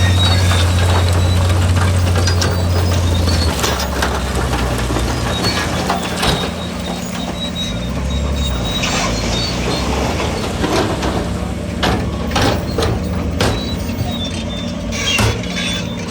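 Heavy construction machinery's diesel engine running, its low note dropping about three seconds in, with scattered metallic clanks and knocks.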